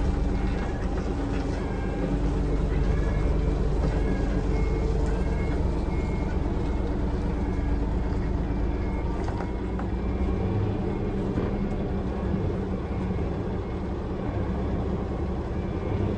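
Hino Profia truck running along the road, heard inside its cab: a steady low engine and road rumble that eases somewhat about two-thirds of the way through. A faint short beep recurs over and over.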